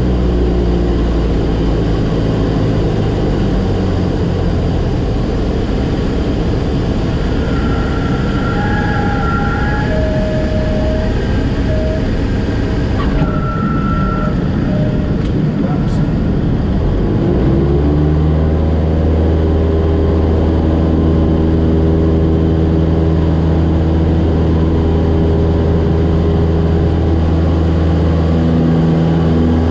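Light single-engine propeller airplane landing: the engine is throttled back within the first second, leaving wind and rolling noise from the landing rollout with a few short high tones partway through. About 18 seconds in the engine comes back up to a steady higher power.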